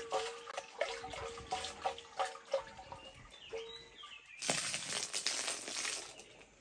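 Yogurt and water sloshing and knocking inside an earthenware butter churn being shaken back and forth, about three knocks a second. About four and a half seconds in, liquid poured from the churn's spout splashes onto the ground for about a second and a half.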